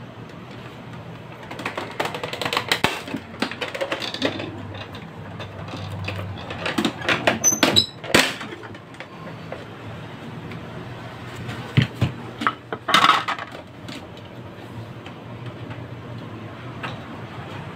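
Plastic clicks, knocks and rattles from an Epson L-series ink-tank printer's scanner unit being handled and worked loose from the printer body, coming in clusters a few seconds apart over a low steady hum.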